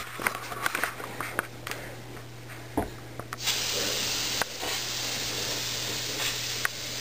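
Can of compressed air (air duster) spraying a steady hiss into an open desktop computer case to blow out built-up dust, starting about halfway through. Before it, a few light clicks and knocks of handling.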